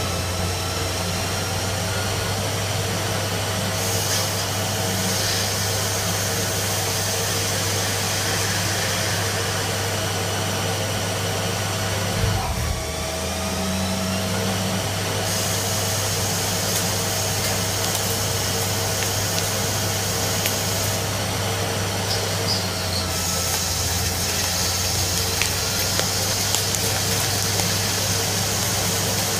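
CNC lathe running a turning operation on a metal part: a steady machine hum from the spindle, with a higher hiss that switches on and off several times as the tool works.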